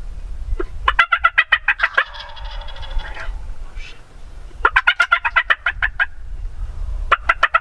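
A wild turkey tom gobbling three times, each gobble a rapid rattling call about a second long.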